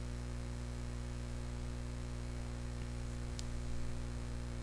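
Steady electrical mains hum, a low buzz with its overtones, with one faint click about three and a half seconds in.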